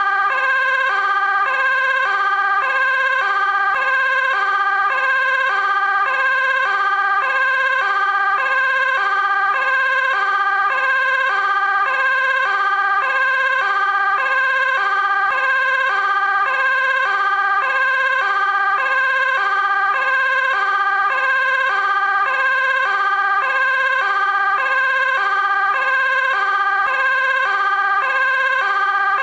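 Dutch fire engine two-tone siren sounding steadily, switching between a low and a high tone about every half second.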